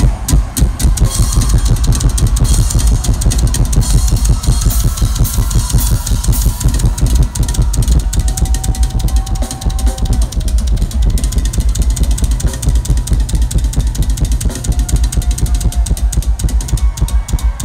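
Live rock drum solo on a Pearl drum kit, partly played with oversized drumsticks: a rapid, driving run of bass drum strokes under tom hits and cymbal crashes, loud throughout.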